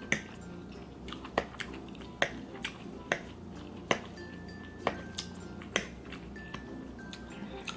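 Close-miked eating: a string of sharp, wet mouth clicks from chewing, roughly one a second, over faint background music.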